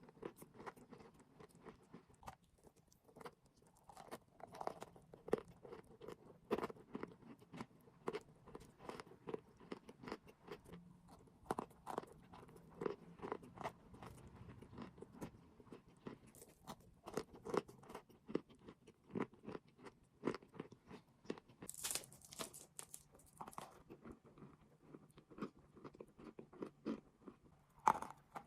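A person biting and chewing crunchy chalk and clay close to the microphone: an irregular run of sharp crunches and crackles, with a brief, sharper crackle about three quarters of the way through.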